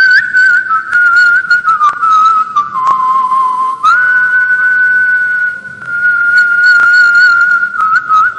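A man whistling a melody by mouth into a close microphone: a single clear tone that wavers and trills. It steps down in pitch over the first few seconds, jumps back up about four seconds in and holds there. Short sharp clicks come and go throughout.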